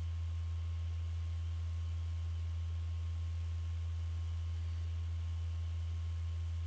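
Steady low electrical hum with a faint thin higher tone above it, unchanging throughout.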